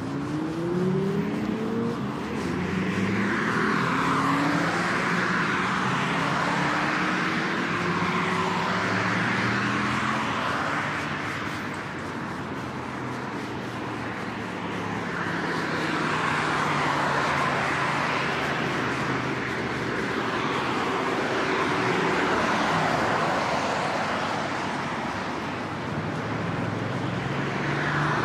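Road traffic on a multi-lane city road: cars driving past one after another, their tyre noise swelling and fading every few seconds, with one car's engine rising in pitch as it accelerates in the first couple of seconds.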